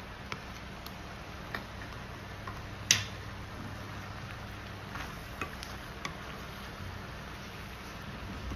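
Wooden spoon stirring penne and cheese through a thick creamy sauce in a skillet, with scattered light taps of the spoon against the pan and one louder knock about three seconds in, over steady background noise.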